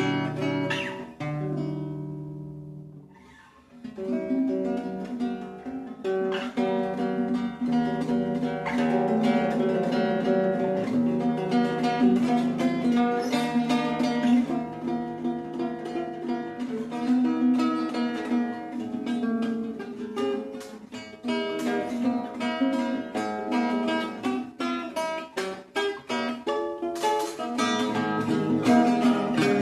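Music: acoustic guitar playing, plucked notes and strummed chords, briefly dying away about three seconds in before the playing picks up again.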